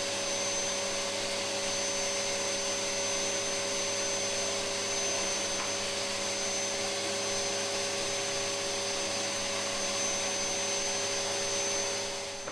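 Kenwood 2200-watt canister vacuum cleaner running steadily, a constant motor whine with steady tones over the rushing suction noise, fading out near the end.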